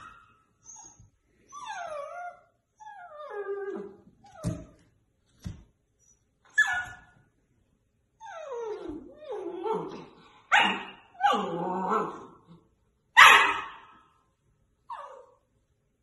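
A puppy whining and barking at its own reflection in a mirror: a few falling whines in the first seconds, then a string of short, high barks, the loudest near the end.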